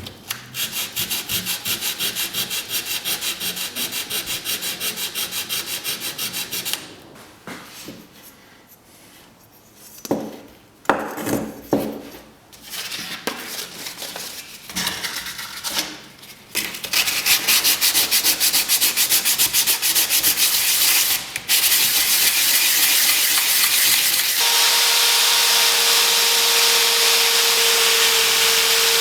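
Sanding: fast, even back-and-forth rubbing strokes in two long runs, with scattered scrapes between them. About 24 seconds in, a power tool starts and runs steadily, with a constant hum under its whir.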